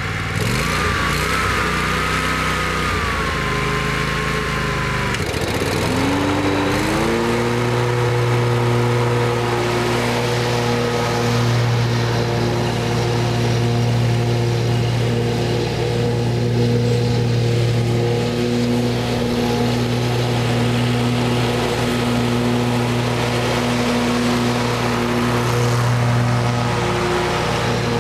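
2005 Exmark Turf Tracer zero-turn mower's 20 hp Kohler Command engine running. Its speed rises and falls over the first several seconds, then it settles into a steady high speed.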